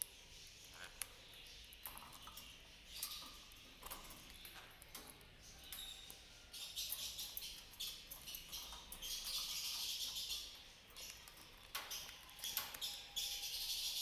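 Small caged parrots chattering in high, squeaky calls, busiest in the second half, among many sharp clicks and taps from the birds moving about the cage.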